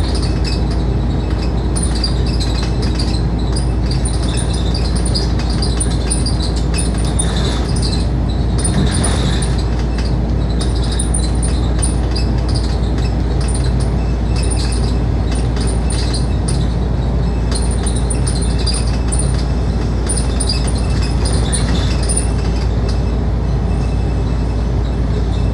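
Cabin noise inside a Scania K310UD double-decker bus cruising at steady speed: a constant low rumble of the diesel engine and tyres, with light metallic rattling of interior fittings coming and going.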